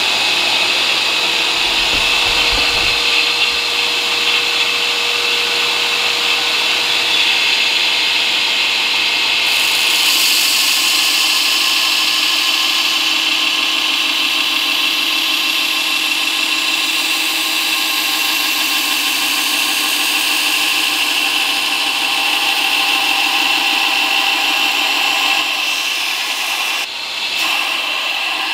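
Belt grinder running with a steel knife blade pressed against its worn abrasive belt, grinding the edge bevel: a continuous, steady grinding hiss that eases briefly near the end.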